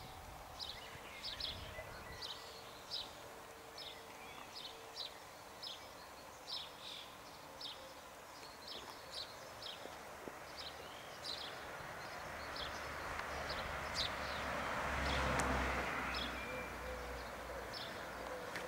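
A small bird chirping over and over, short sharp chirps about twice a second. Late on, a broad rushing noise swells, peaks and fades away beneath the chirps.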